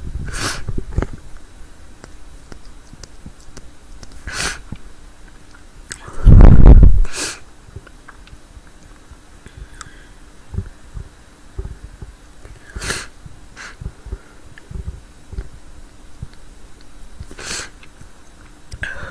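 A woman's short, sharp breaths every few seconds, with one loud, forceful sneeze about six seconds in that overloads the microphone with a low rumble.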